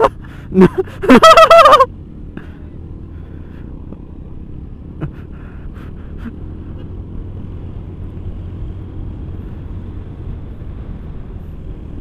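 Automatic scooter being ridden, its engine and wind noise making a steady low rumble, with a few light knocks. A short, loud burst of a man's voice comes about a second in.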